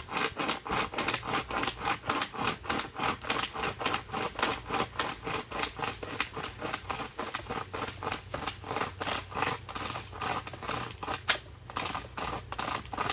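Pocket chainsaw, a flexible steel cutting chain pulled back and forth by its two handles, sawing through a fallen tree limb with a rasping stroke about two to three times a second. Near the end a single sharp crack stands out as the loudest sound.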